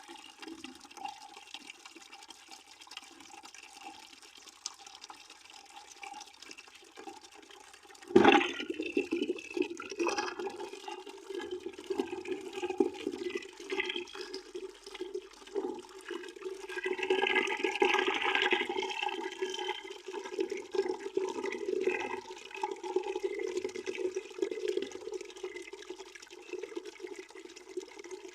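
Water running from a tap into a bucket as it fills. About eight seconds in the flow sets in suddenly louder with a splash, then keeps running louder and uneven.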